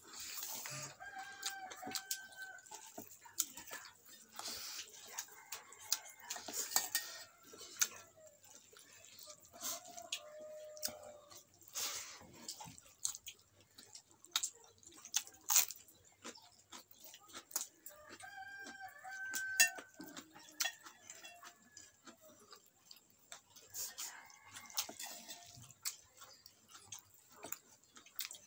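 A rooster crowing several times, each call lasting about a second or more. Throughout there are short clicks and smacks of chewing and of fingers working rice on a wooden plate.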